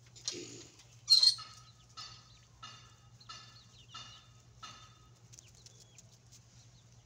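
Backyard chickens calling: one loud squawk about a second in, then a run of about five evenly spaced calls.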